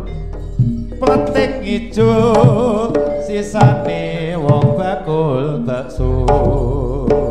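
Live jaranan music from a gamelan ensemble: kendang hand-drum strokes over a steady low drone, with a wavering melody line above.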